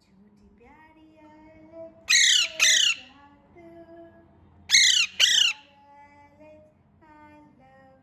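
Pet green parakeet giving two pairs of loud, harsh squawks, one pair about two seconds in and another about five seconds in, with quieter pitched calls in between.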